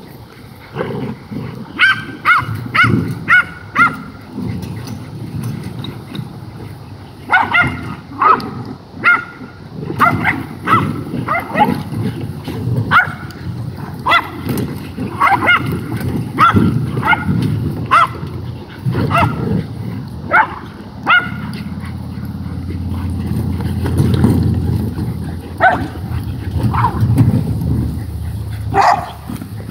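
Black mouth cur hog dogs and another dog barking and yipping in quick clusters of short, sharp calls as they attack a wheelbarrow, over a steady low rumble.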